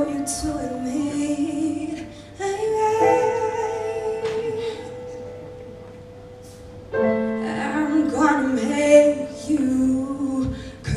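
A woman singing a slow melody with long held notes over soft musical accompaniment. The singing dies away in the middle and comes back about seven seconds in.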